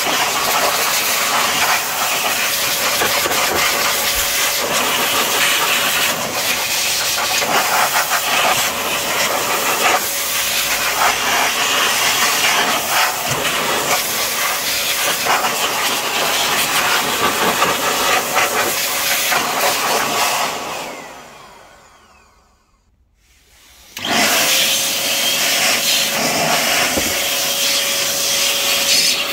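Handheld electric air blower running, a steady rush of air with a motor whine, blowing dust out of an open receiver's chassis. About two-thirds of the way through it is switched off and spins down to near silence, then about three seconds later it is switched back on with a rising whine as the motor spins up.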